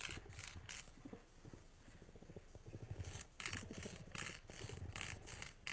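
Nail file rasping back and forth across a cat's claws in quick, faint scratchy strokes, about four a second, thinning out in the middle and coming thick again in the second half.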